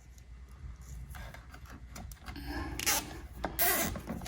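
Rubbing and scraping as parts and wiring are handled by hand: faint at first, building from about a second in, with two louder scrapes near the end.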